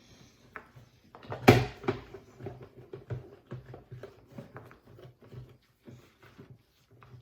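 A part of a coffee maker being handled and scrubbed clean: one loud knock about a second and a half in, then a string of small knocks and rubbing.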